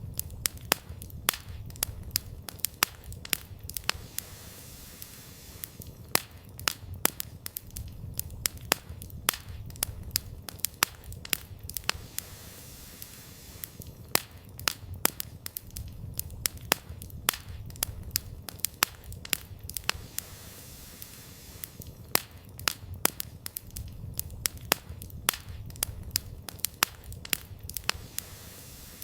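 Wood campfire crackling, with sharp, irregular snaps and pops several times a second over a low, steady rumble.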